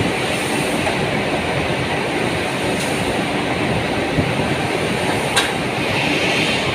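CNC bending machine running steadily, with a sharp click about five seconds in.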